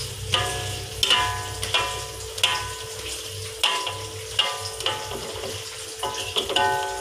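Metal spatula tapping and scraping against a metal wok about a dozen times at an uneven pace, each stroke setting the wok ringing briefly, over the steady sizzle of an egg omelette frying in oil.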